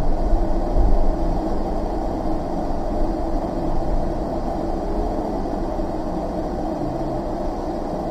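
Van engine running and the vehicle rolling slowly, heard from inside the cab: a steady low rumble, with the engine note wavering slightly in places.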